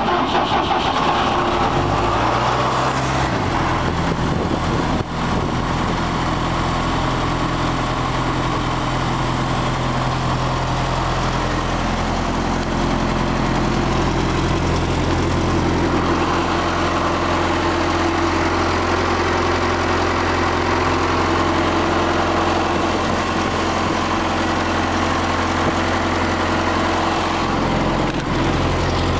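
John Deere 4.5-litre diesel engine of a towable air compressor starting up, its pitch rising about two seconds in, then running steadily.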